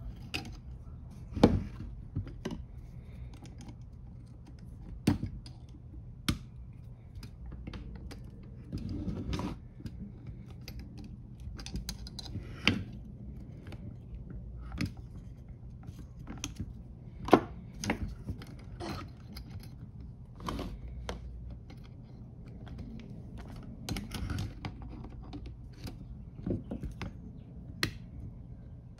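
Irregular small clicks and taps of hand tools and metal carburetor parts being handled during disassembly, with a few sharper knocks standing out.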